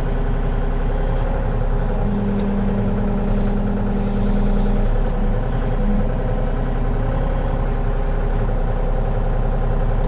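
Engine of a compact earthmoving machine running steadily while it works dirt, with a steady higher tone joining it for about three seconds near the middle.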